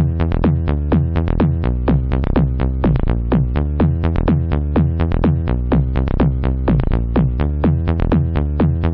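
Electronic dance music with a fast, steady beat and deep bass.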